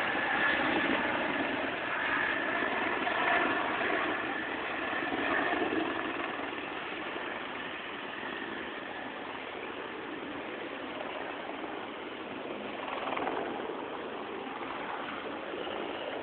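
Helicopter engine and rotor running steadily, louder for the first six seconds or so and then settling lower.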